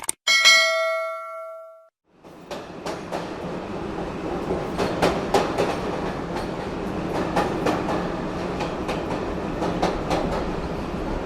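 A bell-like chime rings once and dies away over about two seconds. Then a train is heard running on the rails, a steady rumble with irregular clanks and the clickety-clack of wheels over rail joints.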